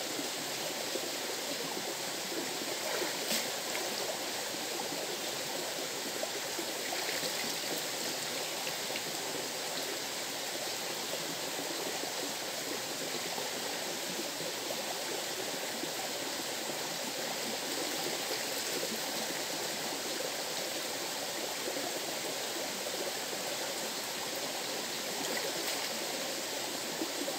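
River water flowing steadily, a continuous even rush.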